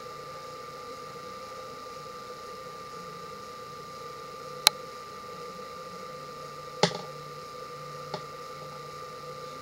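Steady room hum, like a bathroom exhaust fan, with a constant tone in it, broken by three sharp clicks in the second half, the first the loudest.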